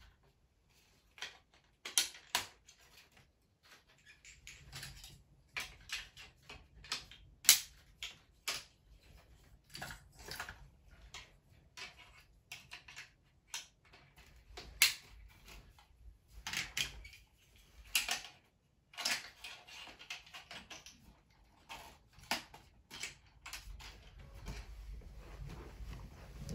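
Hard plastic Playmobil track pieces and level-crossing parts being handled and snapped together: irregular clicks, taps and rattles of plastic on plastic.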